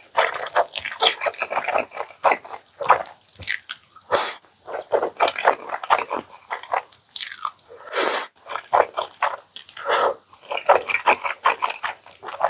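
Close-miked eating: rapid, wet chewing and biting of food, with a few longer, noisier mouth sounds in between.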